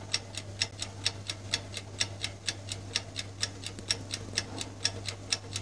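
Clock-ticking sound effect for a puzzle countdown timer: even, sharp ticks at about four a second, over a faint low steady hum.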